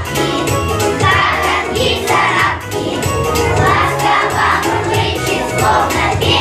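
Young children's choir singing in unison over a recorded backing track with a steady beat.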